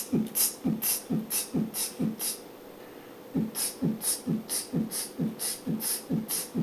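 Australian Terrier puppy panting fast, about four short breathy pants a second, stopping briefly about two seconds in and then starting again.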